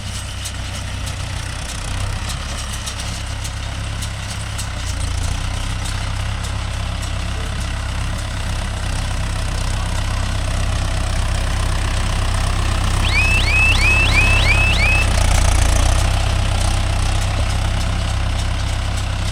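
Mahindra Yuvo Tech Plus 585 tractor's diesel engine running steadily while working a baler, a low drone that swells a little about two-thirds of the way through. A run of six quick rising chirps cuts through about 13 seconds in.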